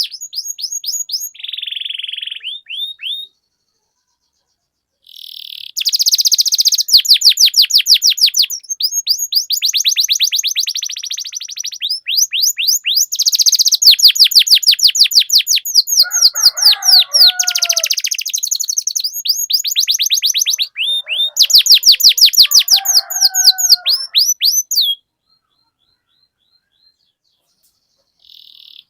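Domestic canary singing long rolling trills: fast runs of repeated high notes in several phrases, broken by a pause of about two seconds early on and falling silent near the end. Twice, lower wavering notes sound beneath the trills.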